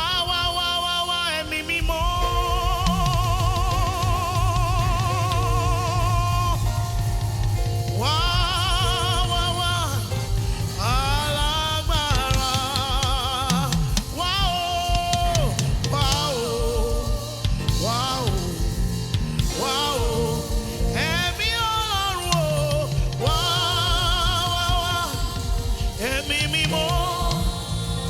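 Gospel praise music: a singer's voice with vibrato, holding long notes over a steady bass and drum backing.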